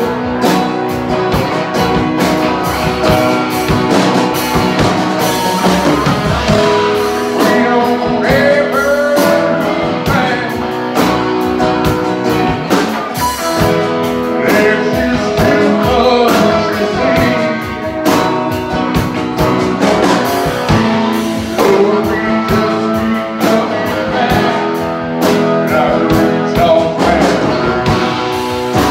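Live band playing a blues-rock song: electric guitar lead with bent notes over a strummed acoustic guitar and a steady beat.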